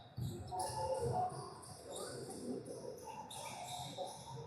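Basketball game on an indoor court: a ball bouncing a few times, with short high squeaks scattered through, typical of sneakers on the gym floor, and faint voices.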